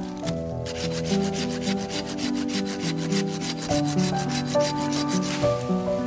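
A hand saw cutting through a tree branch in quick, even back-and-forth rasping strokes, several a second, which stop shortly before the end. Background music with held notes plays underneath.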